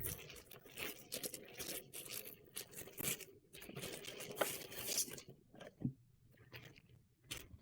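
A shipping package being torn open by hand: continuous tearing and rustling for about five seconds, then a few scattered crinkles and clicks as the contents are handled.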